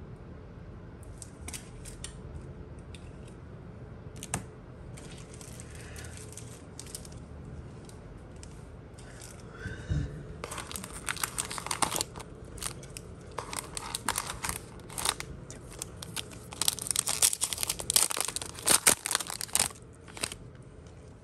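A foil trading-card pack wrapper being crinkled and torn open by hand, with faint handling crinkles at first, a soft thump about ten seconds in, and loud, dense crinkling and tearing through the second half.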